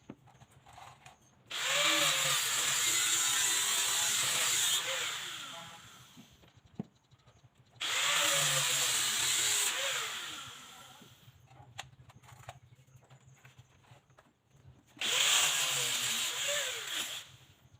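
Handheld electric power tool run three times for a few seconds each, with a loud hiss as it cuts wood, the motor winding down after each run.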